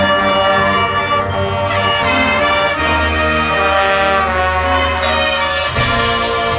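High school marching band playing, the brass section to the fore with trumpets and trombones over sustained low notes; the chord changes a little before the end.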